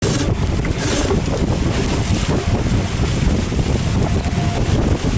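Wind buffeting the microphone in a loud, steady rumble, with water rushing and spray hissing along the hulls of a Hobie TriFoiler hydrofoil trimaran under sail. A brighter hiss of spray rises briefly about a second in.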